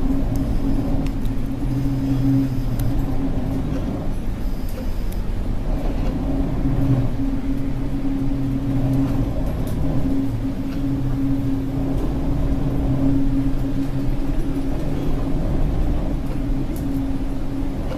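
Engine running steadily: a constant hum over a low rumble, with no change in speed.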